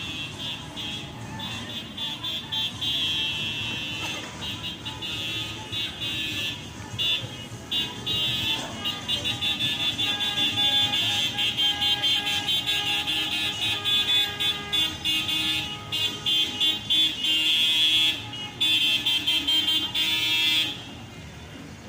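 Car horns honking in long, choppy blasts over slow-moving traffic, loudest in the second half and stopping abruptly near the end.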